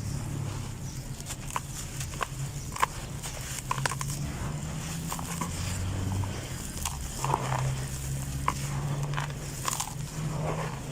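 Clumps of red dirt being crumbled, giving scattered irregular crunches and small cracks.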